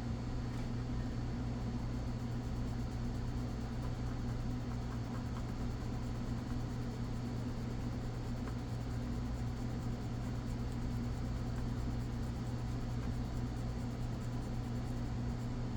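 Steady low hum with an even hiss, unchanging throughout, with no distinct clicks or scrubbing strokes standing out.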